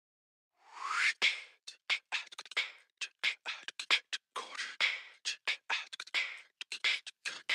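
Beatboxed vocal percussion from a music soundtrack: a short breathy rising swoosh about a second in, then a quick, irregular run of sharp click and snare-like hits with no melody.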